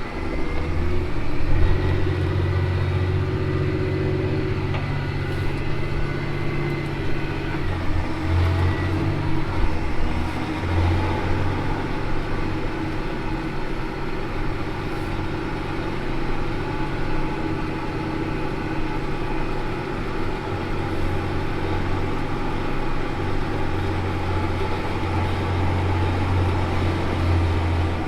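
Diesel engine of a Versatile 365 tractor running steadily, a continuous low drone. A faint high whine sits over it for the first few seconds.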